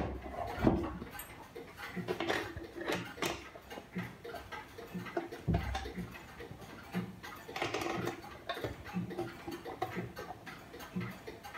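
An 1820 Black Forest wood-plate clock movement ticking, mixed with small knocks and clicks of handling as the hands are moved round the dial.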